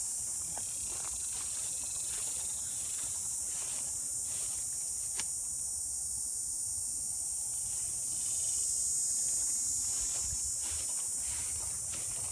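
Steady high-pitched drone of insects filling the background. Footsteps through dry grass and brush come at the start and again near the end, with a pause in the middle.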